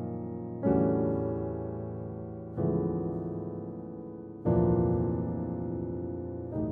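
Piano playing slow, sustained chords, a new chord struck about every two seconds and left to ring and fade.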